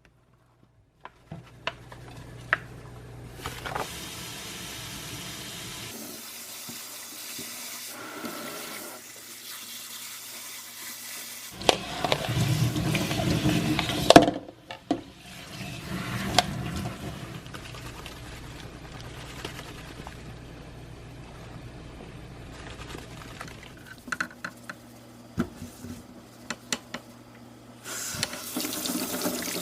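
Water running from a tap, with scattered clicks and knocks; the flow is strongest for a few seconds a little before the middle.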